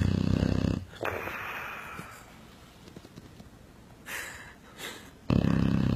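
A sleeping dog snoring: a loud, low, rattling snore that stops just under a second in, then a softer breathy exhale. A second loud snore begins a little after five seconds. The snores have a buzzing rumble likened to a motorcycle.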